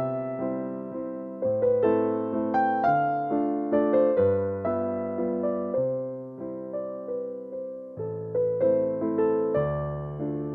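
Background music: a piano playing a slow melody over chords, each note struck and left to ring away.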